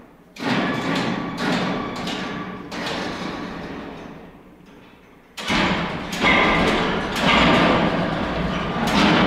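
Heavy metal knocks and clanks with a rumbling clatter as an engine is fitted into a KAMAZ truck's frame. The first clatter starts sharply about half a second in and dies away; a second, louder one starts suddenly about five seconds in and keeps going with repeated knocks.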